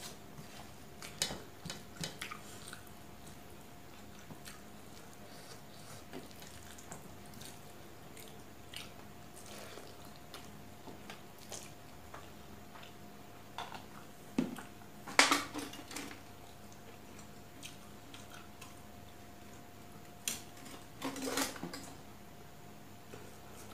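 Close-up eating sounds: fingers mixing and scooping rice and curry on a steel plate, with small clicks and scrapes against the metal and chewing. Louder scrapes come about a second in, around the middle and near the end.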